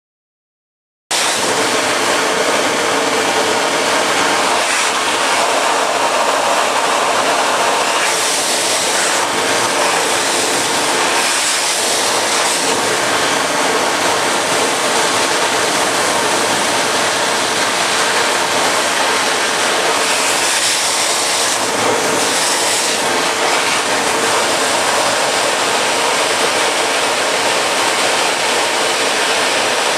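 Electric hand drier switching on abruptly about a second in and running steadily: a loud rush of blown air over a constant motor-and-fan hum, with the airy hiss swelling briefly a few times.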